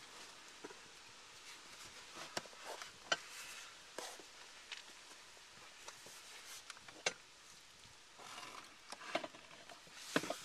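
Faint handling noise: scattered light clicks and ticks with soft rustling, from hands working a steel seat bracket and its bolt on car floor carpet.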